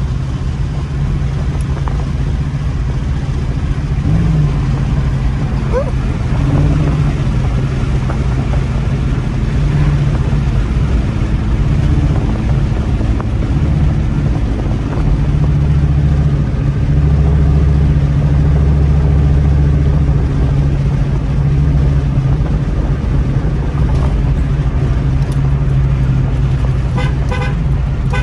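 2002 Ford Mustang GT's 4.6-litre V8 running with no muffler, heard from inside the cabin while cruising; the exhaust drone gets louder for a few seconds around the middle as it pulls harder.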